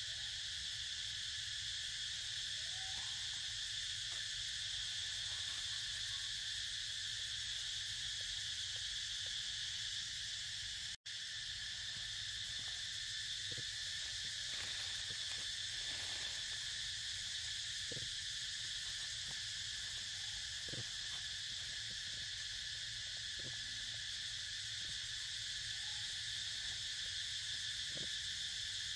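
Steady, high-pitched insect chorus with a couple of fixed tones, over faint soft clicks and a few brief squeaks. The sound drops out for an instant about eleven seconds in.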